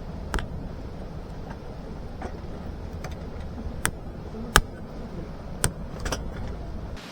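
A handful of sharp clicks and knocks, the loudest in the middle, over a steady low rumble that drops away near the end.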